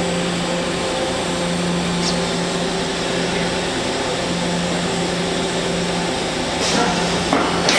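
Mazak Nexus 510C-II vertical machining center running: a steady mechanical hum with a held low tone. A few knocks and clatters come near the end.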